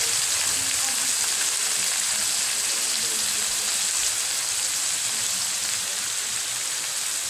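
Raw chicken pieces sizzling in hot oil in a pan: a steady frying hiss as the chicken is briefly seared before liquid is added. It eases off slightly toward the end.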